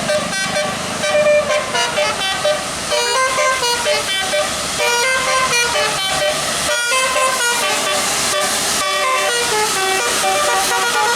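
A bus 'telolet' musical air horn plays a quick tune of short notes that keep changing pitch. There is a brief break about seven seconds in.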